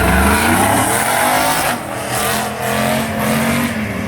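A drag-racing vehicle accelerating hard at full throttle down the strip. The engine's pitch rises, drops at a gear change about two seconds in, then rises again.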